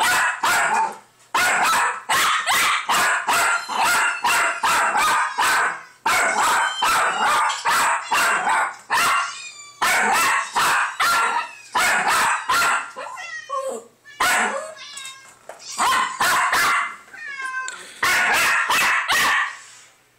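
Jack Russell terrier barking frantically in rapid runs of sharp barks, several a second, with brief pauses. Kittens meow from the computer speakers in some of the gaps. The barking stops just before the end.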